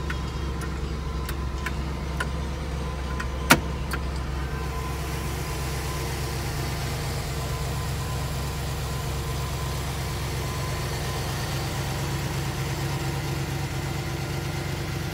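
A 1961 Corvette's carbureted 283 small-block V8 idling steadily. A few light clicks in the first seconds and one sharp click about three and a half seconds in stand out over it.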